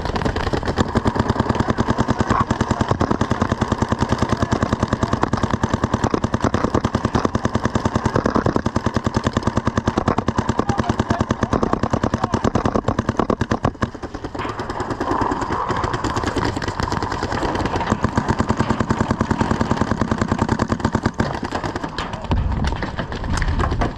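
Paintball markers firing rapid strings of shots, a fast even popping with a brief lull about halfway through.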